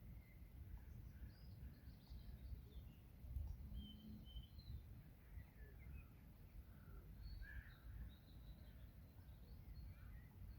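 Faint, scattered bird calls and chirps over a low, steady outdoor rumble.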